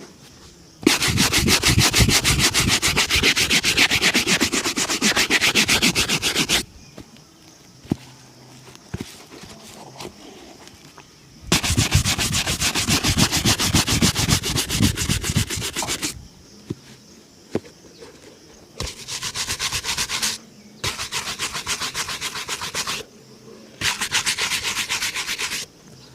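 Fast back-and-forth rubbing strokes on a leather shoe during a shoe shine, in five spells: two long runs of several seconds, then three short ones near the end, with brief pauses and a few light taps between.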